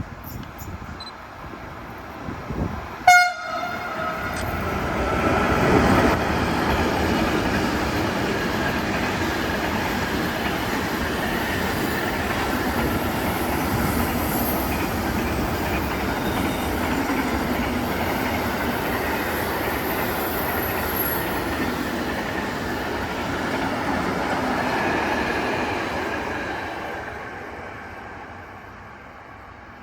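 A train gives one short horn blast, then passes for about twenty seconds with a steady rumble and wheel noise that fades away near the end.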